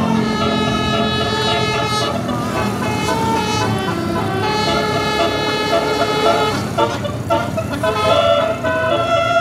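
Telolet multi-tone air horn on a tour bus playing a tune: several horn notes sound together and step from pitch to pitch, with a brief break about seven seconds in.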